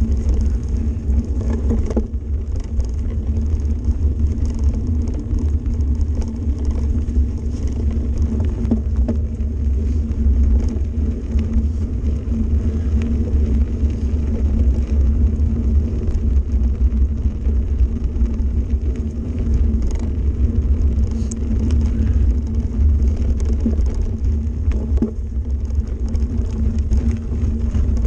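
Mountain bike rolling over a gravel forest road, heard from a bike-mounted camera: a steady low rumble from the tyres and the ride, with small scattered clicks and rattles.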